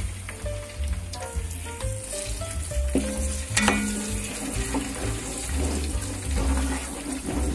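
Garlic cloves sizzling in hot oil in a pan, stirred with a metal slotted spoon, with one sharp clink about three and a half seconds in.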